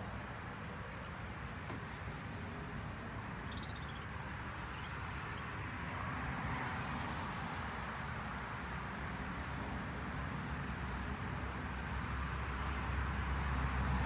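Outdoor background noise: a steady rushing hiss, with a low rumble building near the end and a brief high chirp about three and a half seconds in.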